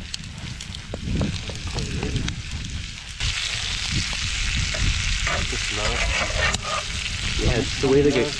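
Diced potatoes frying in a cast-iron skillet over a campfire. The sizzle grows much louder about three seconds in, with scrapes and clicks as a metal spatula stirs them.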